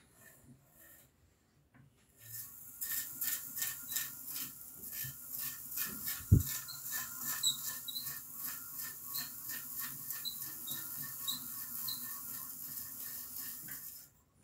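Hand-cranked Wimshurst machine turning, a rhythmic rasping, squeaky rattle at about three strokes a second, with one low thump about six seconds in. It starts about two seconds in and stops suddenly near the end.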